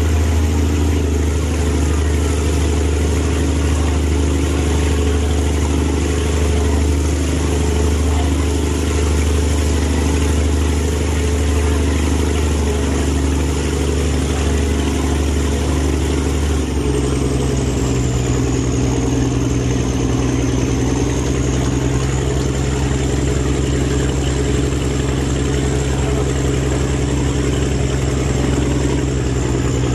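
Boat engine running steadily, heard from on board, with a high thin whine over the engine note. About 17 seconds in the engine note shifts and the whine glides down in pitch.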